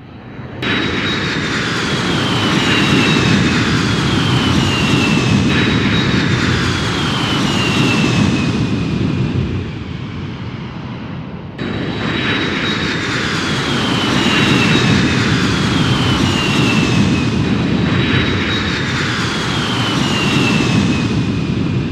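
Fighter jets passing over, a heavy rumble under high whines that fall in pitch one after another. The same stretch of sound plays twice, cutting back to its start about halfway through.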